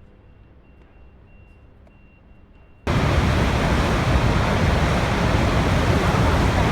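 Faint low hum for about three seconds, then a loud, steady rushing of falling water cuts in abruptly: a waterfall sound effect.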